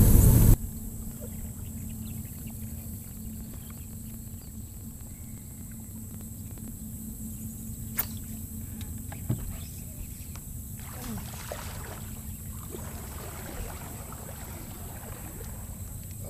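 Steady low hum from a bass boat, most likely the bow-mounted electric trolling motor, with one sharp click about halfway through and a soft thump a second later as the angler sets the hook on a bass.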